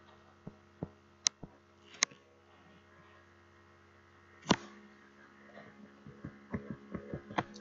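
Steady electrical mains hum under scattered sharp clicks and taps from drawing input on a computer. A few come in the first two seconds, a louder one about four and a half seconds in, and a quicker run near the end.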